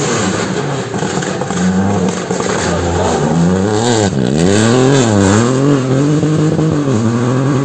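A rally car's engine revving hard through a gravel hairpin, its pitch dipping and rising sharply about four and five seconds in as the driver lifts and changes gear. It then climbs steadily as the car accelerates away.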